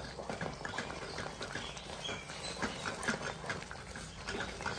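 Thick tender-coconut halwa bubbling and popping in a pan while a wooden spatula stirs and scrapes through it: an irregular patter of soft clicks and pops.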